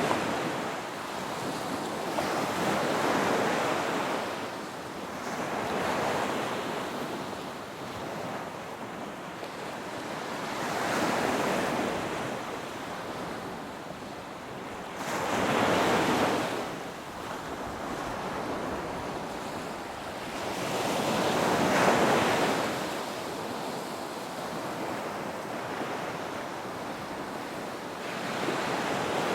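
Ocean waves breaking and washing in, surging louder and fading away every few seconds over a steady rush of surf.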